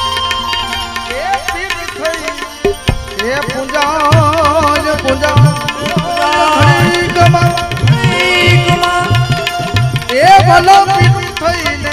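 Instrumental interlude of a Gujarati bhajan: steady hand-drum strokes under a melody line with sliding, wavering notes. The drumming thins briefly about three seconds in, then picks up again.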